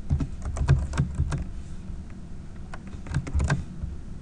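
Typing on a computer keyboard: irregular clusters of keystrokes, some louder than others.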